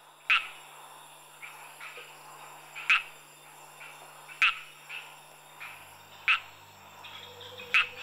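A frog calling at night: short, sharp calls repeated about every one and a half seconds, with fainter calls in between.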